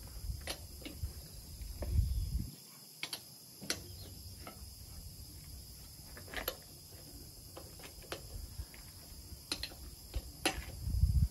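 Scattered metallic clicks and clinks of a wheel brace on the wheel nuts of a Land Rover Series 3's steel rear wheel as the nuts are fitted, irregular and a few seconds apart. A low rumble swells twice, around two seconds in and just before the end.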